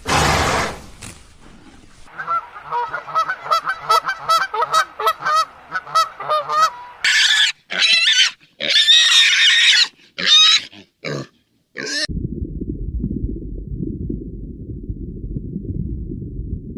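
Pigs squealing: a quick run of short squeals, then louder, higher shrill squeals, followed near the end by several seconds of low rumbling noise.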